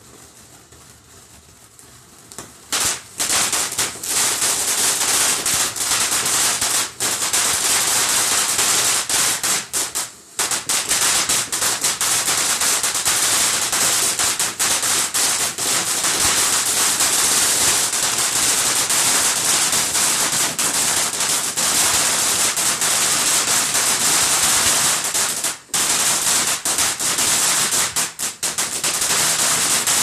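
Ground fountain firework crackling: quieter for the first couple of seconds, then a loud, dense, rapid crackle of popping sparks that runs on with a few brief pauses.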